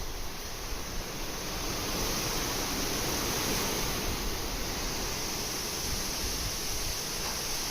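Steady rushing noise of a typhoon's storm wind.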